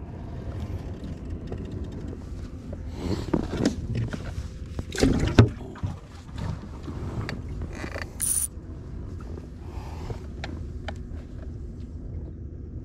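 Handling noise in a boat: rustling and several knocks, the loudest about five seconds in, over a steady low rumble, with a brief high squeak about eight seconds in.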